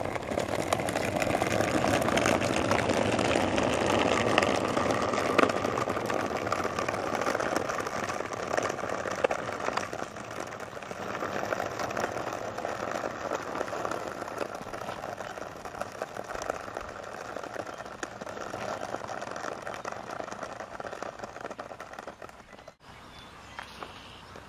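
A small wheeled cart rolling and rattling along a rough asphalt road, growing fainter as it moves away.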